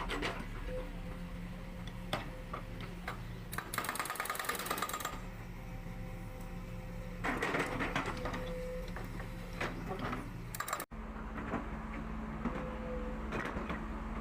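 Excavator's diesel engine running steadily under load, with scattered clanks and knocks and two longer noisy bursts about four and seven and a half seconds in. The sound drops out for an instant about eleven seconds in, then the engine hum carries on.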